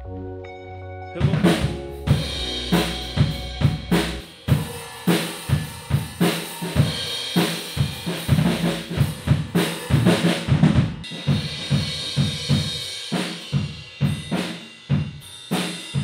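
A drum kit played steadily inside a clear drum shield topped with foam-board panels: a driving beat of kick and snare hits with cymbals, starting about a second in.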